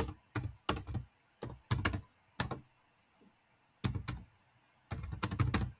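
Typing on a computer keyboard: irregular runs of keystrokes, with a pause of about a second midway and a quick dense run near the end.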